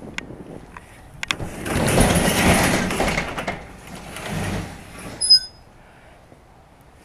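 Hand-lifted sectional garage door rumbling open, with a second, shorter rumble as it is pushed further up, then a brief sharp metallic ring about five seconds in.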